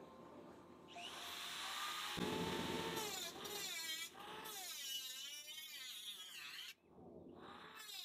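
Small handheld electric grinder starting up about a second in and running against the steel refrigerator cabinet, its whine wavering up and down in pitch as it bites the metal. It drops out briefly near the end, then picks up again.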